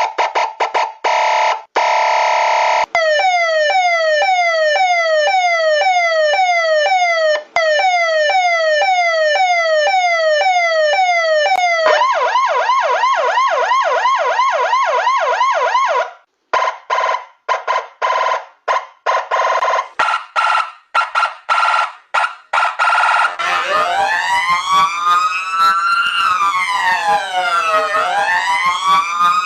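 American and Czech emergency-vehicle sirens played in turn: a short steady tone, then a falling sweep repeated almost twice a second, then a faster yelp, then a choppy pulsing tone. In the last few seconds a slow wail rises and falls.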